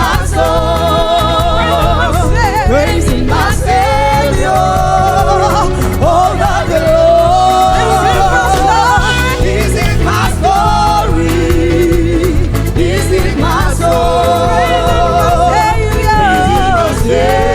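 Live gospel praise music: a singer's voice with wide vibrato and sliding runs over a full band with a steady drum beat.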